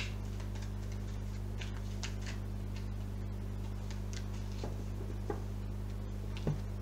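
Oracle cards being shuffled and handled on a table: a few faint, scattered ticks and soft swishes of card edges, over a steady low electrical hum.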